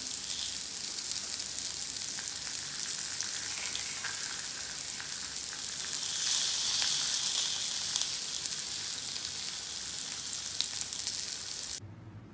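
Kingfish steak sizzling in olive oil on a hot ridged grill pan, a steady crackling hiss that swells a little midway. It stops abruptly near the end.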